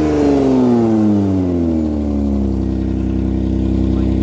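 Hyundai Santa Fe engine and exhaust, its revs falling back over about two and a half seconds and then settling into a steady idle, heard through a cracked exhaust flex pipe that is leaking.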